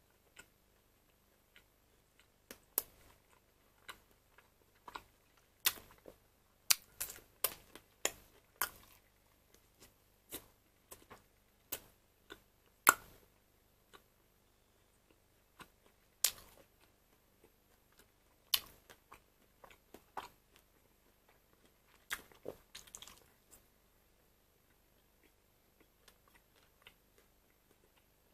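Close-up chewing of a cheese-filled Wiener sausage: irregular wet clicks and mouth smacks in two busy runs, thinning out near the end.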